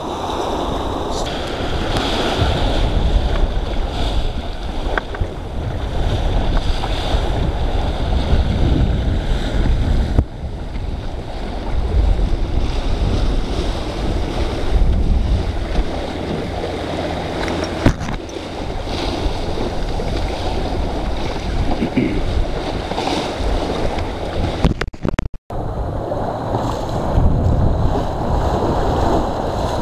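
Wind buffeting the microphone over the rush and slap of choppy water along the hull of a small wooden sailing dinghy under way in a fresh breeze. The sound cuts out for an instant about 25 seconds in.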